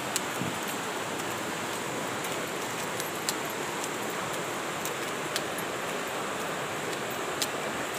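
Muddy river rushing over a rocky bed: a steady hiss of flowing water, with a few faint sharp ticks scattered through it.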